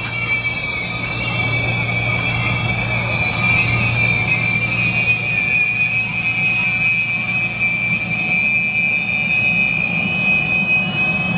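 Stainless-steel passenger cars rolling slowly past at close range, with a low rumble and a steady high-pitched metal squeal from the wheels as the train slows to arrive.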